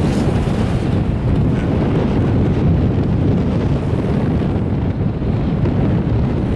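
Wind buffeting the microphone on a moving chairlift: a loud, steady, low rumble.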